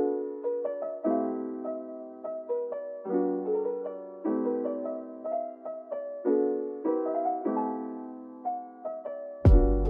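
Background music: piano chords and a melody played at a slow, even pace, with drums and bass coming in near the end.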